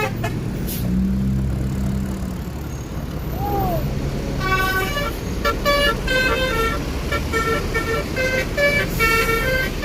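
Bus traffic running, then about four and a half seconds in a multi-tone basuri musical bus horn plays a quick tune of short stepped notes that carries on to the end.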